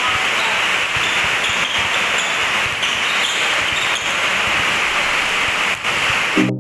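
Heavy rain drumming on the metal roof of a covered court: a steady, loud rush with no let-up.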